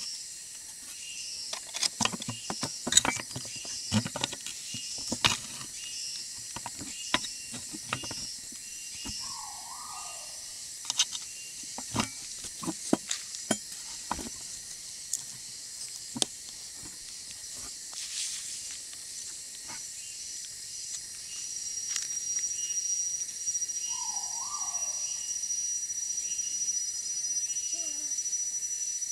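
Irregular knocks, clicks and rubbing as a pig-tailed macaque handles and shifts a Bushnell camera trap, the bumps thinning out about halfway through. Underneath runs a steady, high, pulsing insect chorus, joined near the end by a steady high whine. Two falling calls also sound, one near the middle and one later.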